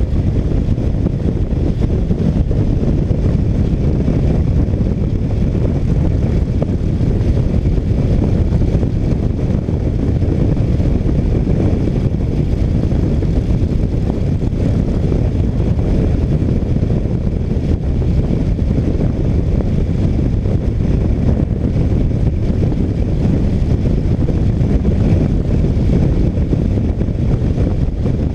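Steady low rumble of wind noise and engine sound from a motorcycle cruising at road speed, heard from a camera mounted behind the windshield.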